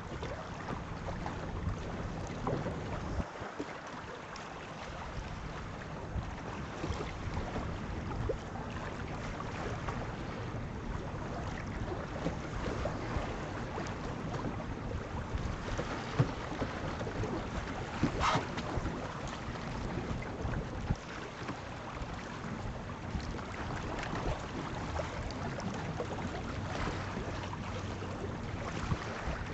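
Wind buffeting the microphone over water rushing along the hull of a sailboat under way, a steady noise with a few brief knocks.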